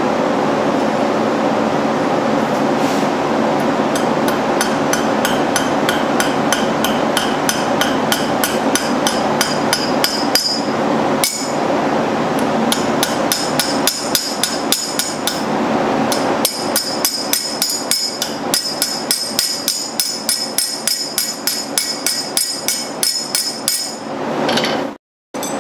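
Small hammer tapping a steel horseshoe on an anvil in quick light strikes, about four a second in the later part, each with a bright ringing clink, peening brass pins that hold the nail hooks on. A steady hum runs underneath.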